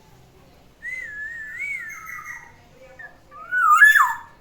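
Black-naped oriole (kepodang) singing two fluty, wavering whistles. The second is louder and ends in a quick downward slide.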